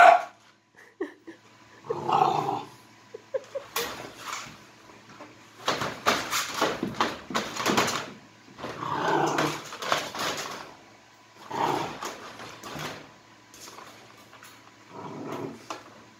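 Three-month-old Boxer puppy throwing a tantrum in a wire crate, with several bouts of frustrated vocalising, angry at a toy bone it cannot reach outside the bars. Around the middle come bursts of scratching and rattling as it paws at the crate floor and bars.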